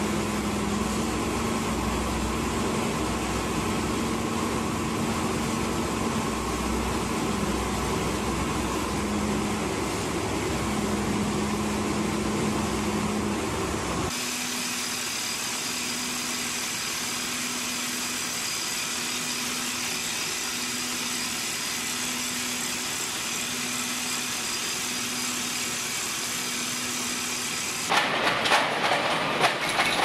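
Junjin hydraulic rock drill rig drilling into a rock face, with a steady mechanical noise and a pulsing hum; the sound changes abruptly about halfway through. Near the end a louder, rough rattling grind starts as a rotating cutter head bites into rock.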